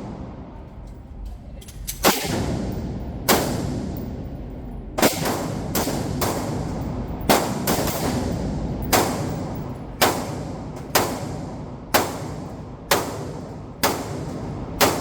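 A string of single gunshots, about a dozen, fired at a steady pace of roughly one a second, each with a short ringing tail.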